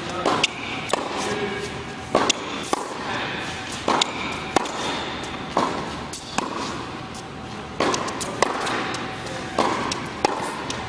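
Tennis rally: racquets striking the ball and the ball bouncing on a hard court, sharp hits in close pairs about every two seconds, sounding in a large indoor tennis hall.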